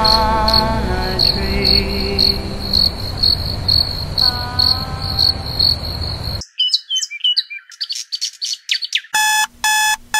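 Background music that cuts off suddenly about six seconds in, followed by a few seconds of high chirping; near the end a phone alarm starts beeping, about two beeps a second.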